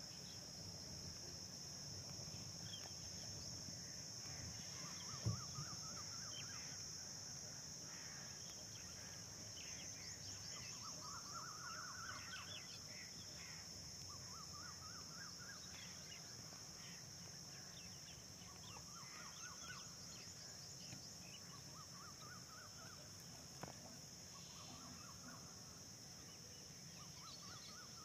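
Insects droning steadily at a high pitch, with a bird repeating a short rising run of notes every few seconds. A single thump sounds about five seconds in.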